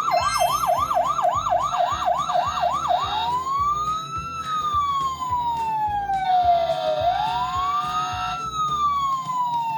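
Fire truck siren: a fast yelp of about three sweeps a second for three seconds, then a switch to a slow wail that rises and falls twice.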